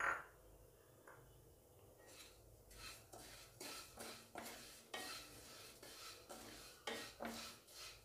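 Wooden spatula stirring and scraping dry vermicelli around a metal kadai, irregular scraping strokes about one or two a second starting about two seconds in, with a sharp knock at the very start. The vermicelli is being dry-roasted in the bare pan without oil.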